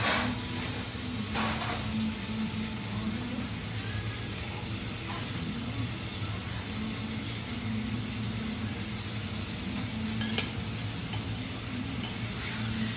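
Beef steaks sizzling on a flat steel teppanyaki griddle: a steady frying hiss, with a low hum underneath and a single sharp click about ten seconds in.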